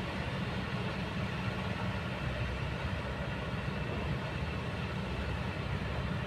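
Diesel engine of a Kobelco hydraulic excavator running steadily, a constant low rumble with no distinct knocks.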